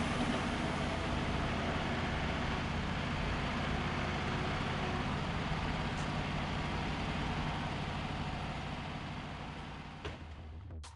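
Wood-Mizer LT35 portable bandsaw mill running steadily, its band blade cutting through Douglas fir as sawdust is thrown off at the start, the engine hum running on under it; the sound fades out near the end.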